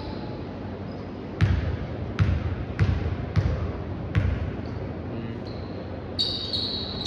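Basketball bounced on the court five times, a little under a second apart, from about a second and a half in. Near the end there is a short high squeal.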